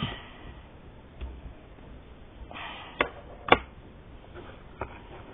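Sticky homemade slime being kneaded by hand: a few sharp clicks and pops, the loudest two about half a second apart around three seconds in, with short stretches of soft squishing in between.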